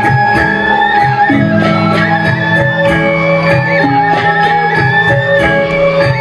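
Balinese gamelan gong kebyar playing dance music: bronze metallophones and gongs strike in a fast, steady rhythm, with a high wavering melody line held over them.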